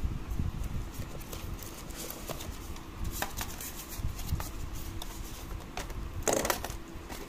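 Hands handling a cardboard box and its plastic packaging: light taps, clicks and scrapes of card, with a louder scraping rustle about six seconds in.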